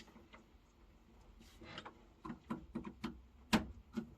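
Scattered light clicks and taps, with one sharper click about three and a half seconds in.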